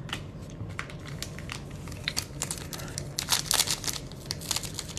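Foil wrapper of a 2021 Bowman Platinum baseball card pack crinkling as it is torn open by hand: a run of sharp crackles that grows thickest about three to four and a half seconds in.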